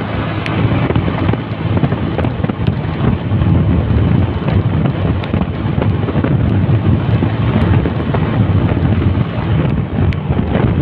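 Wind buffeting the microphone of a camera on a moving motorcycle, a steady low noise, with the motorcycle running underneath.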